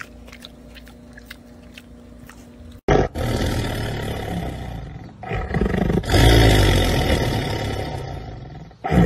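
A faint low hum for about three seconds, then a black panther snarling: two long, rough calls, the second one louder and fading away toward the end.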